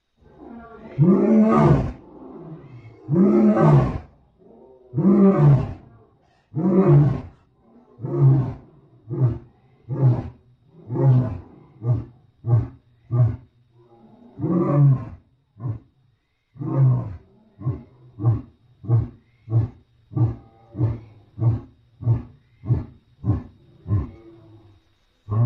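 Lion roaring bout, a sound-design Mosbach lion made from American lion sounds: several long, loud roars, then a run of shorter grunting roars that get shorter and come faster, about two a second near the end.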